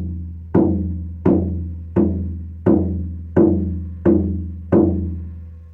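Handmade 15-inch buffalo-rawhide frame drum struck in a slow, even beat, about one stroke every 0.7 seconds, eight strokes in all. Each stroke leaves a deep low tone that rings on between strokes and dies away after the last one near the end.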